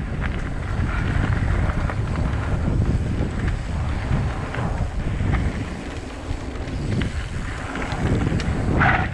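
Wind buffeting the microphone of a helmet- or bike-mounted action camera as a mountain bike rolls fast down a hard-packed dirt trail, with tyre noise on the gravel surface and scattered clicks and rattles from the bike.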